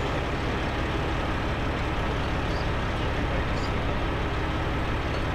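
Boom truck's engine running steadily with a low, even rumble.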